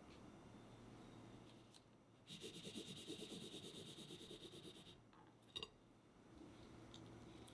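Faint rubbing and scraping as hands handle a steel cake ring and its clear acetate lining. It lasts a couple of seconds, starting about two seconds in, and a short click follows.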